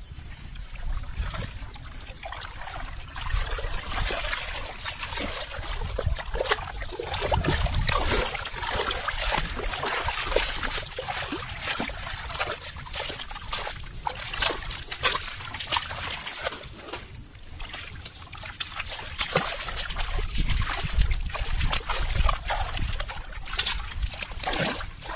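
Shallow muddy water splashing and sloshing as hands grope through it, in irregular splashes throughout.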